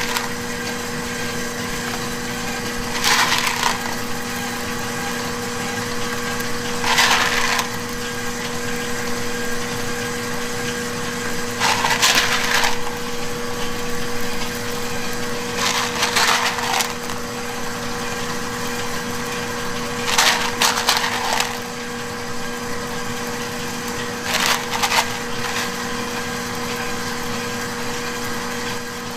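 Chocolate chips rattling as a gloved hand scoops handfuls from a plastic tub and scatters them, a short rustling rattle about every four seconds, six times, over a steady hum.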